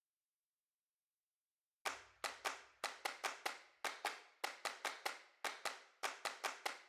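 Dead silence, then about two seconds in a quick run of sharp claps or percussion hits begins, about three to four a second, opening a background music track.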